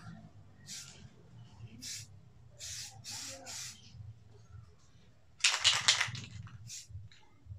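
Spray paint hissing out in short bursts, then a longer, louder burst about five and a half seconds in.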